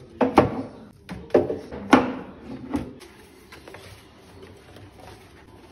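Plastic storage baskets knocking against each other and the metal drawer as they are set into a pull-out kitchen drawer, with about five sharp knocks in the first three seconds. This is followed by quieter rustling as a white sheet liner is pressed into one basket.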